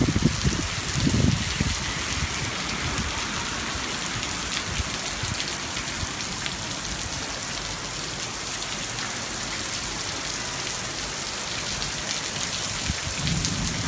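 Heavy rain pouring down in a steady, dense hiss, with a few low bumps in the first couple of seconds.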